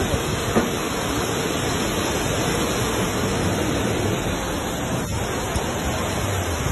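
Floodwater rushing down a street as a torrent, a steady continuous noise.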